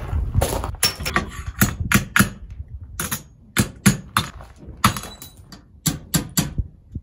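Irregular sharp clicks and knocks as metal steering fittings at a boat's stern are worked by hand with a tool, mixed with footsteps on gravel.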